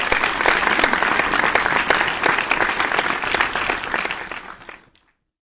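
Applause from a crowd: many hands clapping, dying away and stopping about five seconds in.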